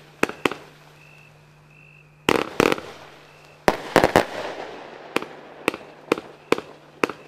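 Lesli 'Ivy' fireworks battery firing its tubes in sequence: sharp launch bangs, a pause of about two seconds, then clusters of reports about two and a half and four seconds in. The second cluster is followed by a fading hiss of glittering stars, and single shots come about every half second near the end.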